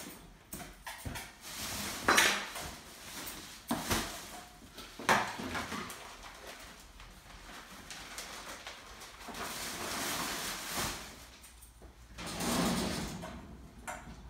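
Handling noises from cleaning a wire animal cage: the metal pull-out bottom tray sliding and knocking, with a few sharp clatters in the first half, then longer stretches of newspaper lining rustling.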